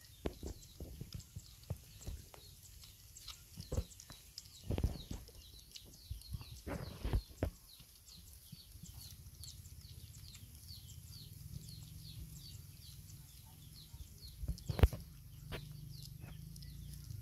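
Puppies eating from a metal bowl: irregular chewing, lapping and knocks against the bowl, most frequent in the first half, with one louder knock near the end. A quick high chirp repeats steadily in the background.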